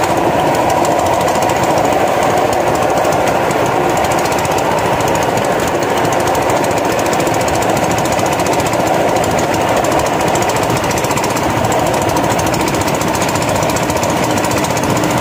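Small rail cart (a 'skate') running along a railway track: a loud, steady, rapid rattling clatter with no let-up.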